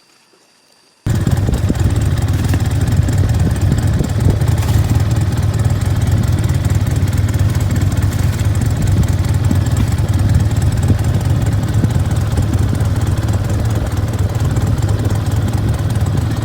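Small engine running steadily at an even speed, cutting in abruptly about a second in.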